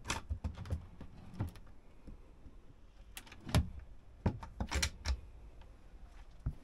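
Overhead locker door in a motorhome being worked by hand: a series of sharp clicks and knocks from its push-button latch and the door itself, loudest near the middle.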